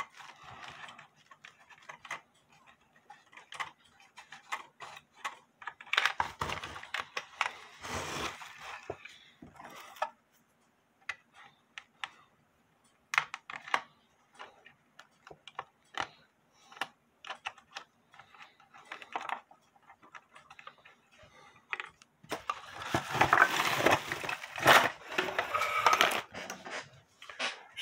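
Hands and a screwdriver working on a wooden cuckoo clock case: scattered small clicks and taps of metal and wood. Near the end a longer stretch of louder knocking and scraping as the case is moved about.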